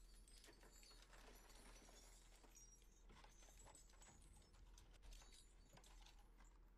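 Faint clatter of small brass fittings and tools spilling out of an opened work van's door and scattering onto pavement: a run of irregular clicks and knocks.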